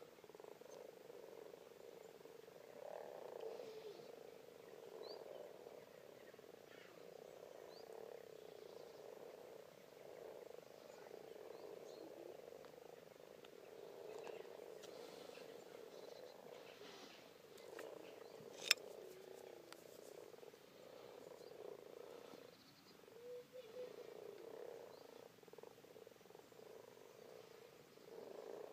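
Chorus of many common frogs calling together in a pond at breeding time: a soft, steady, low grumbling that swells and dips. A single sharp click stands out about two-thirds of the way through.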